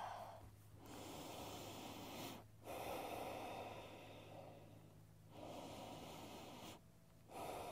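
A woman breathing slowly and audibly, in and out, in about four even breaths a second or two long each with short pauses between them.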